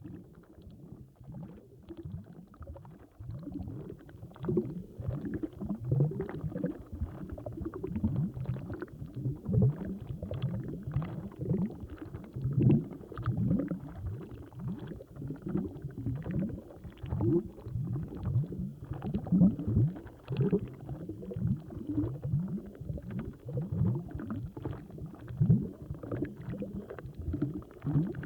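Large air bubbles rising and bursting underwater in a continuous irregular stream, heard as deep, low-pitched bloops several times a second, many of them sweeping upward in pitch.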